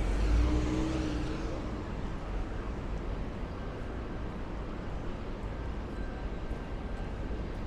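City street traffic: a motor vehicle passes close in the first second or so, then a steady hum of traffic.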